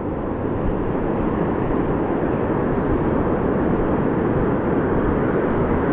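Steady rush of ocean surf breaking and washing around the shallows, with wind buffeting the microphone.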